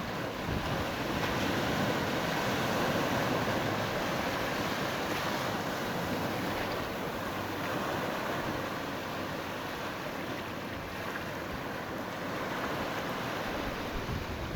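Surf on a sandy beach: waves breaking and washing in as a steady hiss that swells slightly a couple of seconds in. Wind buffets the phone's microphone underneath with a low rumble.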